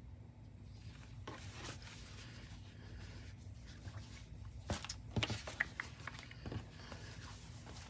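Cotton quilting fabric being handled and folded on a wooden tabletop: soft brushing and rustling, with a few brief rustles in the second half.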